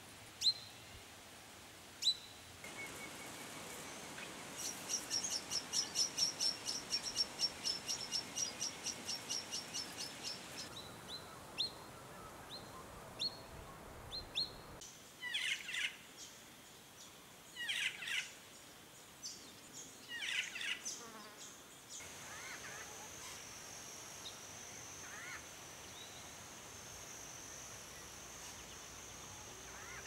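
Brown treecreeper giving sharp single high calls, followed by a long fast run of high piping notes, several each second. Later a black-faced cuckoo-shrike gives three loud descending calls about two and a half seconds apart, then a steady high insect drone runs on with a few faint bird calls.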